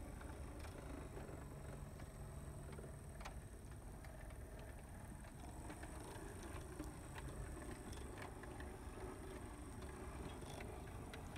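Brass HO-scale model of a D&RGW 4-6-6-4 Challenger steam locomotive (OMI, built by Ajin) running on track: a low, steady drone of its motor and gear drive, with light clicks of the wheels on the rails now and then. The gear noise is what the owner puts down to spur gears used in the first reduction stage of the drive.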